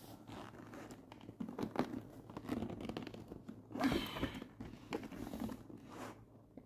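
Rustling and crinkling of suitcase fabric as thread is passed through a loop and pulled tight while hand-stitching a burst seam, with a louder scrape about four seconds in.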